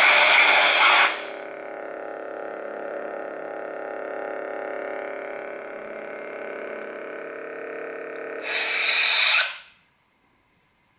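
Lightsaber soundboard effects from the hilt's speaker: a steady electronic hum with a loud hissing burst at the start, then a second burst about eight and a half seconds in, after which the hum cuts off, as when the blade is shut off.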